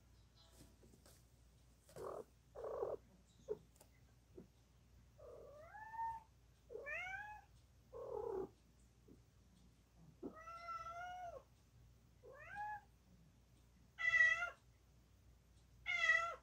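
Domestic cat meowing repeatedly: short calls that rise in pitch, one longer meow about ten seconds in, and the two loudest meows near the end.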